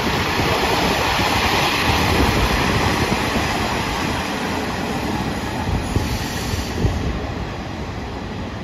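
The JR Shikoku Anpanman Torokko diesel train passing close by, a steady rumble of engine and wheels on the rails that eases slightly as the train moves off.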